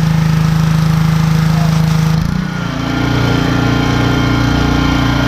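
Small gasoline engine running steadily and loud. A little over two seconds in, its sound shifts to a rougher, uneven hum with a faint steady whine above it.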